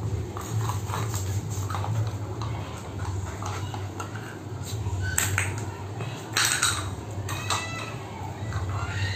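A beagle eating from a metal food bowl: scattered clinks and scrapes of the bowl, with a few louder clatters in the second half, over a steady low hum.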